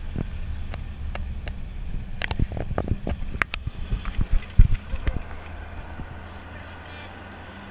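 Open-sided off-road truck driving over a rough dirt trail: its engine drones low while the body and seat rails rattle and clank over bumps, with the loudest knock about four and a half seconds in. After about five seconds it settles to a steadier drone.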